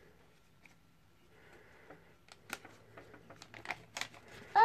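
Paper leaflet being handled and unfolded, with a scatter of short crackles and rustles in the second half. Right at the end a child's voice starts.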